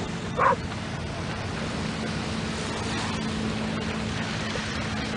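A farm tractor engine running steadily as it tows a beach-cleaning machine across the sand, a low even hum under a steady wash of surf and wind noise. One brief sharp sound about half a second in.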